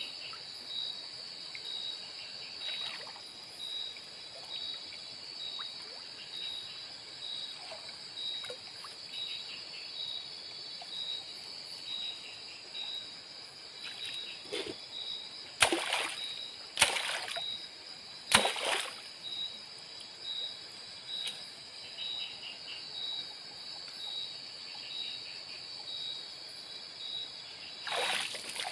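Night insects calling, a steady high trill with a chirp about once a second, over faint trickling water. About halfway through come three sharp splashes in shallow water close by, and another near the end.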